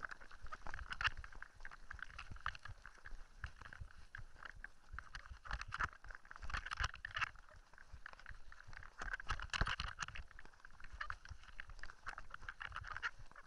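Mountain bike rolling over a loose gravel dirt track, heard through a handlebar-mounted camera: tyres crunching on stones and the bike rattling with frequent small knocks over a low rumble.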